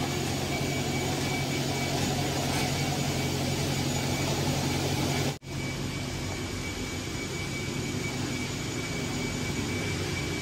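Steady machine noise with a low hum, cutting out for an instant about five seconds in.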